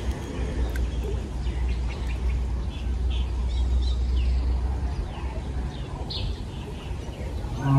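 Birds chirping in short, repeated calls over a steady low rumble.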